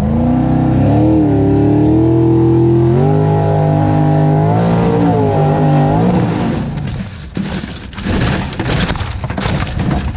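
Formula offroad buggy's engine running at full revs up a steep dirt hill, the pitch rising and then held high before it drops off about six seconds in. After that comes a rapid, irregular clatter of dirt and knocks against the car as it loses the climb.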